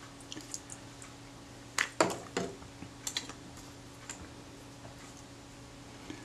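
Light clicks and knocks of small parts and tools being handled and set down on a workbench mat, the loudest a cluster of knocks about two seconds in and a couple more clicks about a second later, over a faint steady hum.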